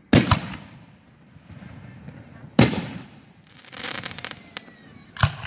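Aerial fireworks shells bursting in loud booms: a double bang right at the start, another about two and a half seconds in and a sharper one near the end, each with a short rolling echo. Between the second and last bangs comes a stretch of crackling from a glittering crackle shell.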